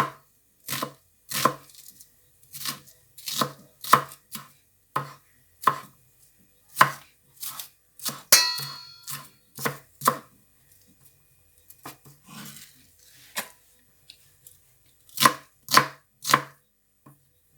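Knife chopping an onion finely on a cutting board: separate sharp strokes about one or two a second, with a few short pauses.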